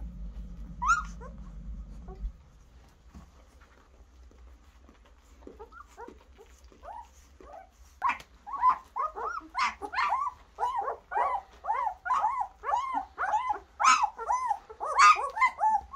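A litter of German shepherd puppies whining and squealing in short rising-and-falling calls, scattered at first and then a dense, louder chorus of about three calls a second from about halfway through, sounding more like monkeys than pups.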